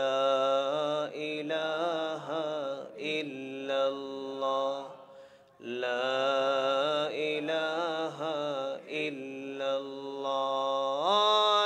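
A man chanting an Islamic zikr melody in long, held notes with a wavering pitch, with a brief pause about five seconds in.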